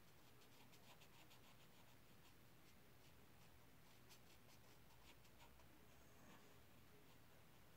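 Faint scratching of colouring strokes on paper, many quick strokes in a row that thin out after about five seconds.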